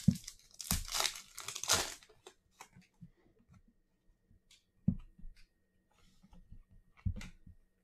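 A 2020-21 Donruss Optic Basketball trading-card pack wrapper being torn open and crinkled, densest in the first two seconds, followed by scattered light ticks and two short knocks about five and seven seconds in as the cards are handled.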